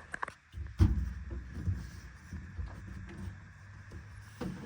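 Handling noises from working on a range hood insert: a few light clicks, then a heavy thump about a second in, followed by uneven low rumbling and another click near the end.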